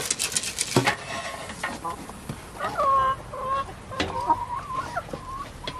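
Chickens clucking in a series of pitched calls through the second half, after a quick run of crunching and snuffling from a pig feeding at a trough in the first second.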